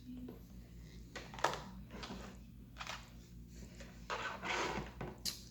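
Hands working a plastic action-figure toy and its straps: a sharp plastic click about a second and a half in, rustling and scraping around four seconds in, and another click near the end.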